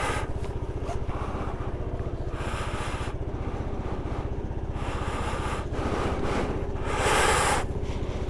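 Motorcycle engine running steadily, heard through a helmet microphone, with wind rushing across the mic in three short gusts.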